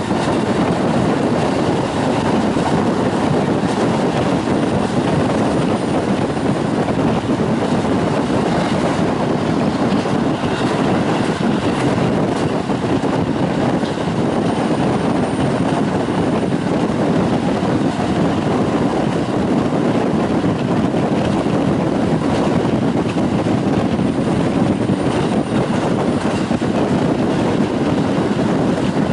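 A train's steady running rumble, heard from inside the carriage while the train travels at speed.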